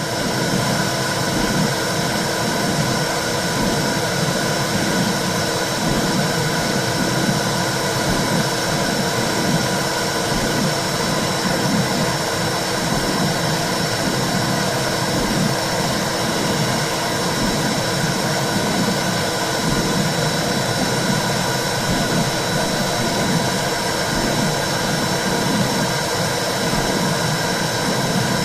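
Womb sound for soothing a baby: a steady low whooshing rush with a regular pulse, about once a second, like a mother's heartbeat and blood flow heard from inside the uterus.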